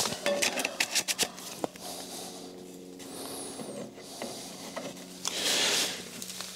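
Handling noises: a run of small clicks and knocks in the first second and a half, then a brief rustle near the end, over a faint steady hum.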